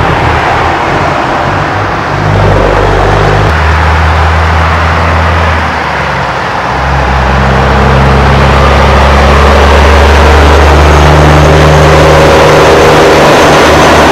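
Loud road traffic noise of passing tractor-trailers: engine and tyre rumble with a heavy low rumble from wind on the microphone, swelling louder about eight seconds in as a truck goes by.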